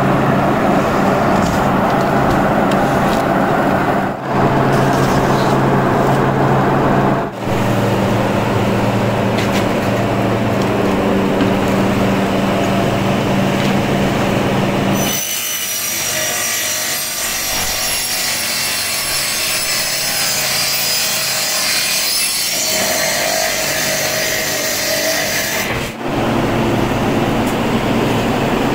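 Plywood mill machinery running, with wood being sawn. A steady motor hum fills the first half; from about halfway a high-pitched saw whine takes over, and the sound changes abruptly several times.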